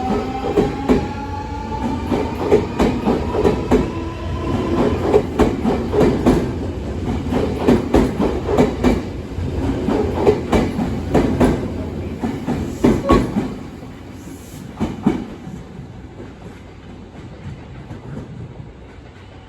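Nankai electric train running, a motor whine rising in pitch over the first few seconds as it gathers speed, with wheels clicking over rail joints. The clicking and the overall sound drop away after about 14 seconds.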